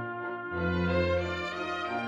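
Background music: held instrumental notes over a low bass line that changes about once a second.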